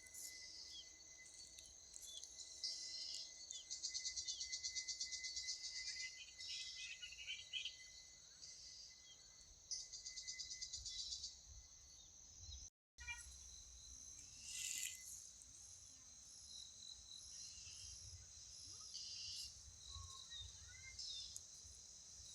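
Outdoor ambience: insects trilling in fast pulsing bursts, with scattered bird chirps over a low rumble. The sound drops out briefly about 13 seconds in.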